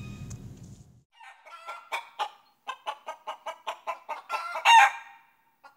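A chicken clucking: a fast run of short clucks with one louder, longer call near the end. The tail of a music track fades out in the first second.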